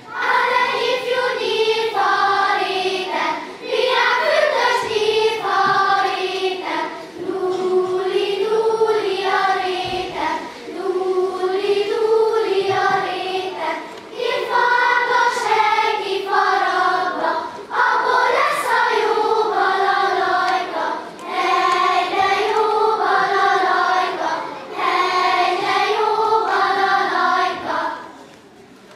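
Children's choir singing a song, its phrases about three and a half seconds long with short breaths between. The singing starts at the outset and pauses briefly near the end.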